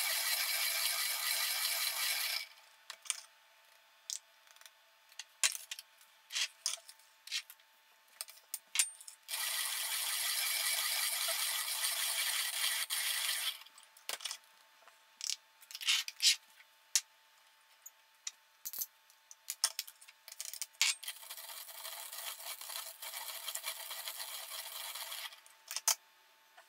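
ROK hand-operated conical burr grinder grinding coffee beans as its arms are turned. There are three spells of rasping grinding, at the start, about ten seconds in and about twenty-two seconds in, with sharp clicks and knocks in the pauses between them.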